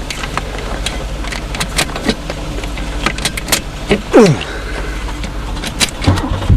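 A car's 3.8-litre V6 being started: clicks and knocks, a whine that falls away a little past halfway, then the engine catches and settles into running about six seconds in, over a steady low engine hum.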